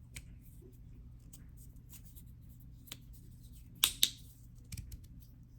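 3D-printed resin magnetic fidget slider being handled and snapped: scattered light clicks, with two sharp clacks close together about four seconds in.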